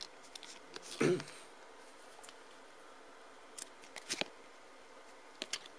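Trading card being slid into a plastic card sleeve: a few faint, short plastic scrapes and clicks, a cluster a little past the middle and another near the end. A brief voice sound about a second in.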